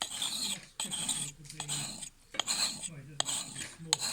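A sharpening stone rubbed in repeated rasping strokes along a steel axe's cutting edge, about five strokes with short gaps between, honing the second side of the blade.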